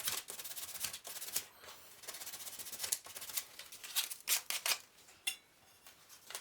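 Double-sided carpet tape being pulled off the roll and peeled, in several short rasping, crackling pulls with gaps between. It goes quieter about five seconds in.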